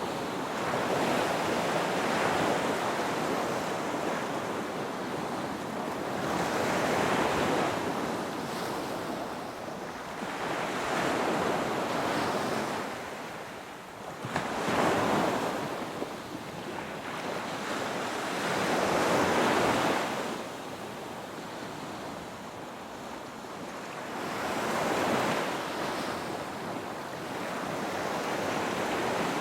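Ocean surf: waves breaking and washing back in a slow, even rhythm, one swell every four to six seconds.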